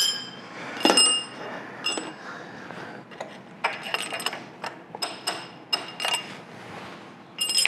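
Metal parts inside a Monarch lathe headstock clinking and knocking as they are worked by hand. A few ringing metallic clinks at about one-second intervals, then a quicker run of clicks and knocks, and another ringing clink near the end.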